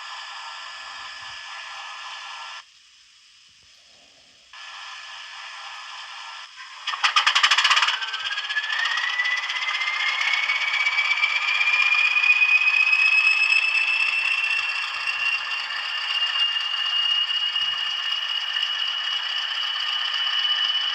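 Sound-fitted model Class 20 diesel locomotive's DCC sound decoder playing its engine start-up through the model's small speaker: a hiss with a short break, then a loud clattering start about seven seconds in, followed by a whine rising in pitch for several seconds before settling into a steady idle. It is really loud.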